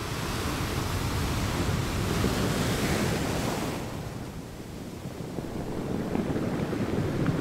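Sea waves surging: a wave swells and washes in, falls away about four seconds in, then another builds toward the end.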